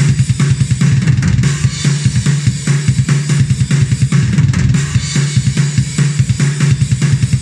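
Sampled metal drum kit from Ugritone's KVLT Drums II plugin, its 'Ride the 85' kit, playing a fast pattern at 145 BPM: quick kick drum hits under a snare and a steady wash of cymbals.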